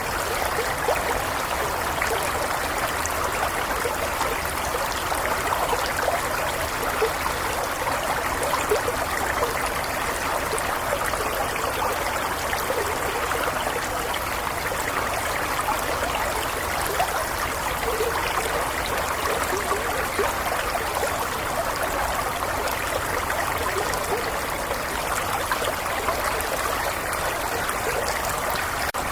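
Stream water flowing and trickling over stones, a steady burbling with small splashes.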